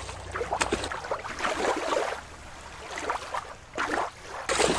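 Water splashing and sloshing: shallow water stirred around a toy at first, then, after a cut about a second in, the splash of a killer whale landing in a show pool.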